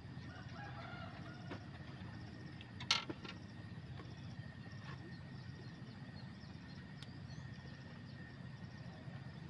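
A rooster crowing faintly over a steady low rumble, with one sharp click about three seconds in.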